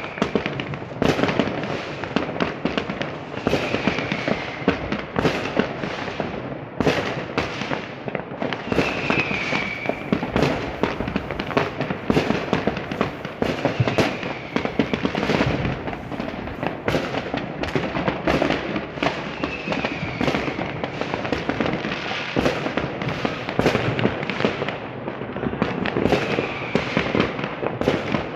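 Dense fireworks barrage: a continuous rapid stream of bangs and crackling from many fireworks and firecrackers going off at once. A short falling whistle-like tone recurs about every five seconds.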